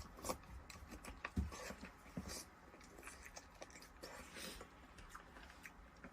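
Chewing and biting on stewed chicken: irregular soft crunches and wet smacks.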